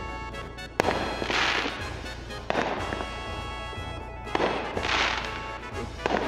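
Aerial fireworks going off: a sharp bang about a second in followed by a long crackling burst, more bangs, and a second crackling burst around five seconds in. Background music plays under the fireworks.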